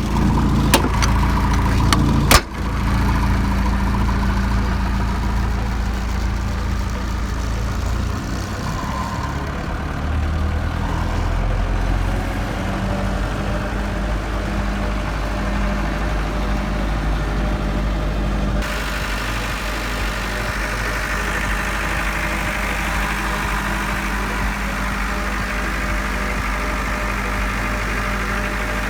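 Diesel generator set running at a steady speed, a loud even engine hum. A sharp click comes about two seconds in, and the character of the hum changes abruptly about two-thirds of the way through.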